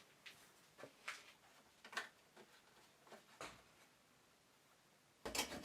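A few faint, scattered light taps and clicks of a small wooden piece being handled and set in a mitre jig, then about five seconds in a louder rubbing, scraping sound begins as the mitred end of the wood is trimmed by hand.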